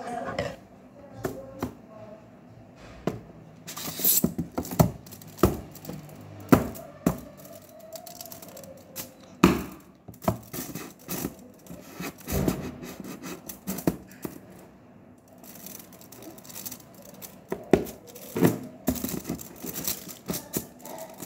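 Scissors cutting and jabbing into a tinfoil-covered cardboard box: irregular sharp snips and knocks, with the foil crinkling and tearing between them.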